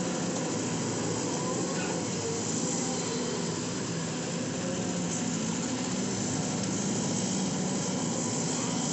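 Hydraulic excavator's diesel engine running steadily under working load.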